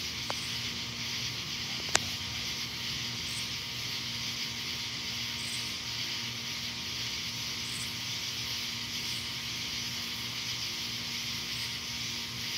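Steady outdoor night hiss with a faint low hum underneath, and one sharp click about two seconds in; no thunder is heard.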